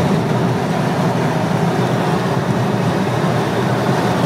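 Steady low engine and exhaust drone with tyre and road noise inside the cabin of a 2008 Hyundai Tiburon cruising at highway speed; the car is fitted with a Magnaflow cat-back exhaust and a K&N intake.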